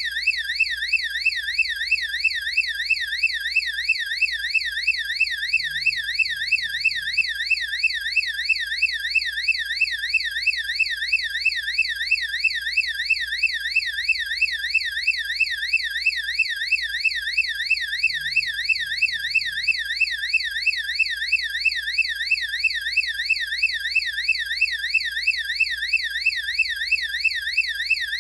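Electronic siren of a strobe warning light sounding in its yelp mode, the police-car tone: a fast, high-pitched wail sweeping up and down a few times a second without a break.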